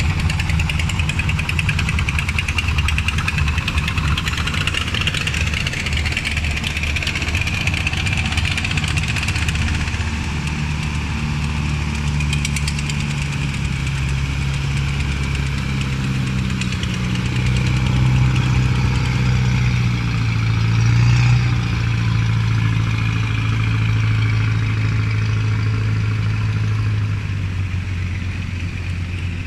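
Motorboat engines running steadily as wooden river boats pass. About a third of the way in, a deeper engine note comes in and grows louder in the middle as one boat passes close, then eases off near the end.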